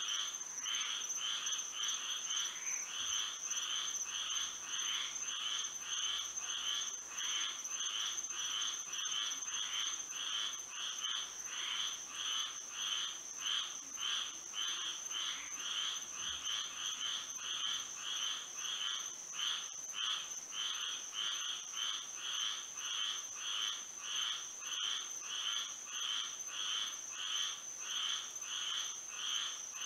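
Chorus of frogs calling at night, many overlapping pulsed calls repeating evenly at about two a second, over a steady thin high-pitched tone.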